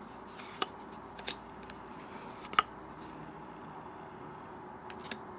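Weiss Schwarz trading cards being handled and flipped over one at a time, giving a few soft flicks and clicks, the sharpest about halfway through.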